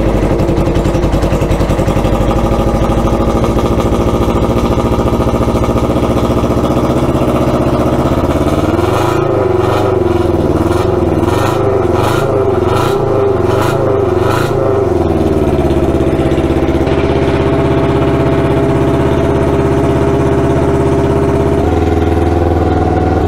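1989 Kawasaki Ninja EX500's parallel-twin engine running very loud just after catching, first start after sitting most of a season. Its pitch wavers up and down with throttle blips for several seconds in the middle, with a quick run of sharp pops, then it settles to a steady run.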